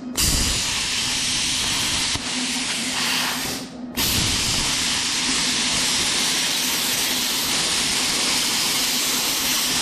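Plasma cutter at a 20-amp setting cutting 16-gauge sheet steel: a loud, steady hiss of the air-plasma arc. It fades out briefly a little before four seconds in, then cuts back in sharply and runs on steadily.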